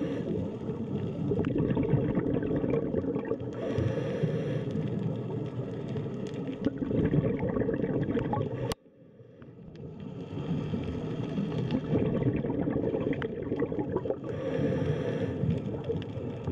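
Underwater ambience picked up by a camera housing: a steady low rumbling water noise, with two hissing, gurgling bursts of scuba exhaust bubbles, one about four seconds in and one near the end. The sound cuts out abruptly near the middle and fades back in over a couple of seconds.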